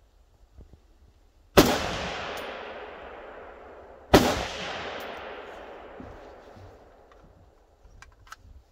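Two shots from a Browning BAR Match semi-automatic rifle in .308 with a muzzle brake, about two and a half seconds apart, each trailing off in a long echoing decay. A few light clicks near the end.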